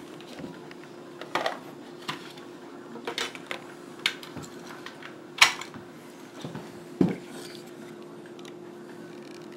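Scattered clinks and knocks of hard objects being handled as a screwdriver is fetched, the sharpest knock about five seconds in, over a faint steady hum.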